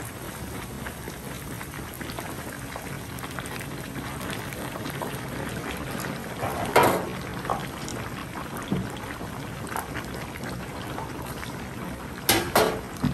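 Hot oil bubbling and sizzling steadily as a large crumb-coated piece of squid deep-fries in a wok, with a few louder sharp cracks about seven seconds in and again near the end.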